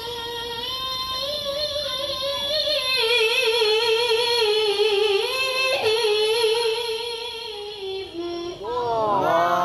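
A child qari reciting the Quran in a high voice in the melodic tilawah style, holding long wavering notes that drift slowly lower. Near the end the voice breaks into quick rising-and-falling turns.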